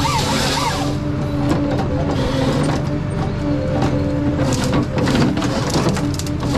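Ponsse Scorpion King harvester running under load: a steady engine and hydraulic drone with a held whine, and frequent clicks and knocks as the harvester head works the timber. A burst of rushing hiss comes in the first second.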